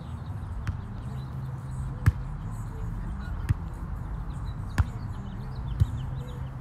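Volleyball struck by hands and forearms four times in a rally, sharp slaps a second or so apart, the first and third the loudest, over a steady low background rumble.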